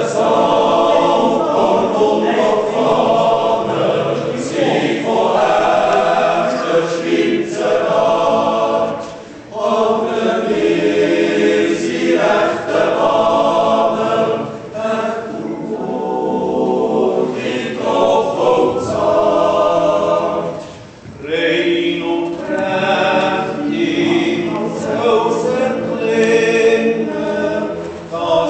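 Choir of a Swiss yodel club singing in harmony, in long held phrases with short pauses between them.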